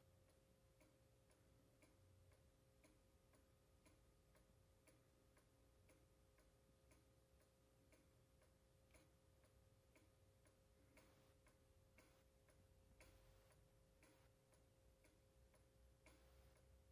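Faint, steady ticking of a weight-driven carved wooden cuckoo clock's pendulum movement.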